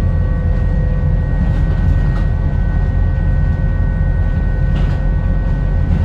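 Inside a moving New Routemaster (Borismaster) hybrid double-decker bus: a steady low rumble of the drivetrain and road, with a constant high whine over it and a few faint rattles.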